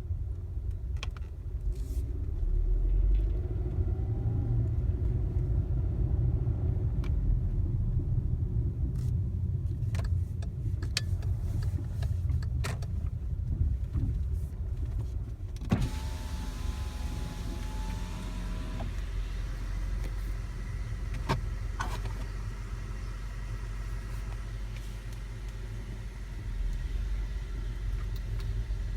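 2014 VW Tiguan moving with a steady low rumble, broken by scattered sharp clunks every second or two. The owner has heard this clunking since the car was new, even on smooth garage floors, and does not know whether it is normal. About halfway through, a wavering whine lasts roughly three seconds.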